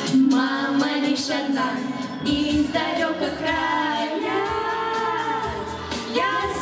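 Children's vocal ensemble singing a song together into microphones, several young voices at once, mostly girls.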